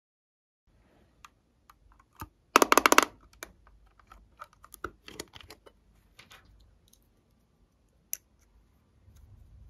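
Plastic eyeshadow palette being handled and opened by hand: a run of small clicks and taps, with a dense burst of plastic clicking and rattling about two and a half seconds in, the loudest part, and one more sharp click near the end.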